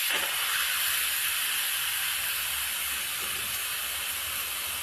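Steam hissing steadily out of a pressure cooker as its pressure is released.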